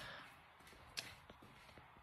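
Near silence: room tone, with a faint click about halfway through.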